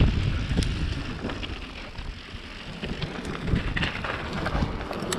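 Trek mountain bike rolling over wet, muddy singletrack and onto wet asphalt: wind buffeting the helmet-camera microphone over the rumble of the tyres, with scattered clicks and rattles from the bike. The noise eases off about halfway through, then picks up again.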